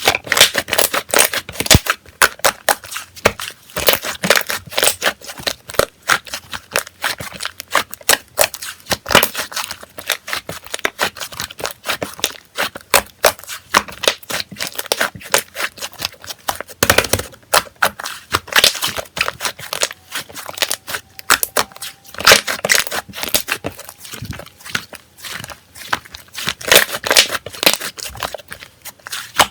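Slime being squished, stretched and poked by hand, making a fast, irregular stream of crackling clicks and pops.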